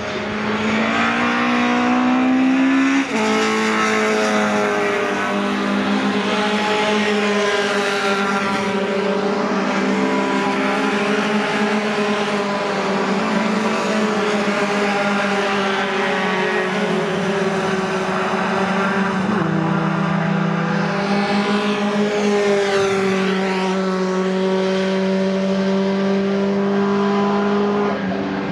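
Race pickup trucks' engines at full throttle passing along the circuit, a loud, sustained engine note. The pitch climbs at the start, steps abruptly about three seconds in, and shifts again around twenty seconds in.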